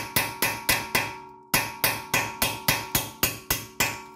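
Hammer blows on a steel punch driving out the brake pad retaining pin of a VW Touareg's four-piston front brake caliper. It is a steady run of ringing metallic strikes, about four a second, with a short break about a second and a half in, stopping near the end.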